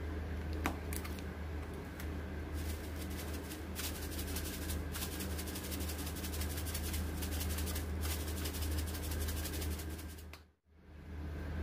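Dried oregano being crumbled and sprinkled by a gloved hand: a fine, rapid crackling rustle lasting several seconds over a steady low hum. The sound cuts out briefly near the end.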